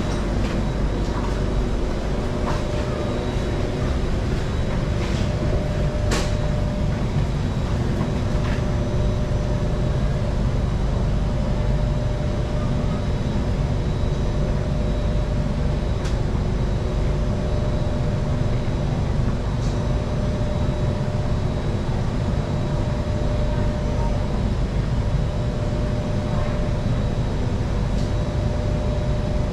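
Singapore MRT train running steadily at speed, a continuous rumble with a faint steady whine and a few sharp clicks, the loudest about six seconds in.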